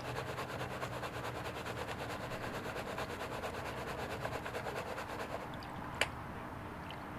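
Gold pan of shredded connector debris (gold-plated pins, plastic and rubber) being shaken in water to stratify it, giving a rapid, even, rhythmic gritty swishing. The shaking stops about five and a half seconds in, and a single sharp click follows.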